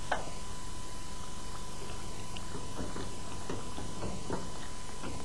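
A wooden spoon stirring veal in thick tomato sauce in a metal pot, with a few soft scrapes and knocks in the second half, over a steady hiss.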